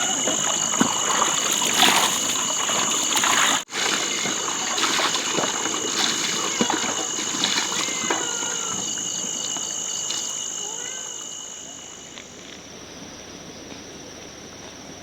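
Insects shrilling in a steady high-pitched drone, which eases and drops slightly in pitch about twelve seconds in, with scattered light knocks and splashes.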